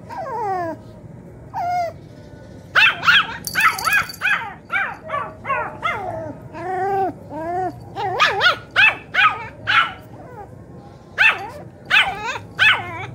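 Poodle vocalizing in a rapid string of short whining yips and barks that rise and fall in pitch, several a second, with a brief break about three quarters in before a last run.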